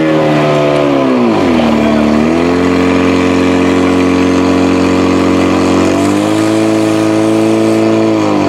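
Fire pump engine running hard and steadily, dropping in pitch about a second in and rising again about six seconds in, as it pumps water out through the hoses.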